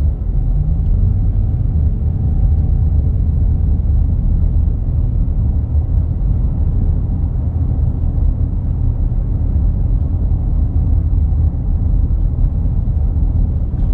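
Pickup truck driving over a bumpy paved road, heard from inside the cab: a steady low rumble of tyres and engine, with the jolts of the bumps in the road mixed in.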